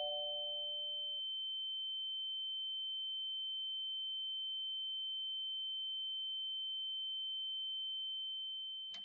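A steady, high-pitched pure tone held at an even level throughout, a ringing effect laid over the film's sound, with a faint click near the end. In the first second the last two notes of a doorbell chime fade out beneath it.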